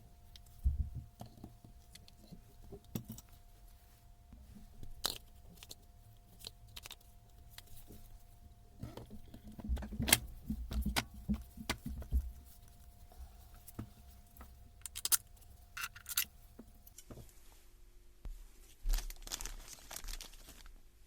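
Small hard parts being handled and set down: scattered irregular clicks, clinks and rattles over a faint steady hum, the hum changing about three-quarters of the way through.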